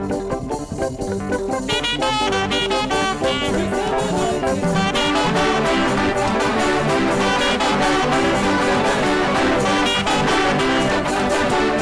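Upbeat African gospel praise music with a saxophone lead over a backing band. The high melodic line comes in about two seconds in and fills out around five seconds.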